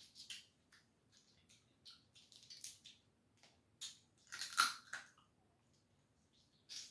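Blue crab shells cracking and crunching as they are picked apart and eaten, a scatter of short cracks and clicks with the loudest cluster about four and a half seconds in.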